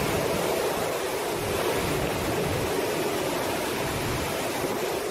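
Storm-force wind and heavy rain lashing trees and a porch: a steady, dense noise without breaks.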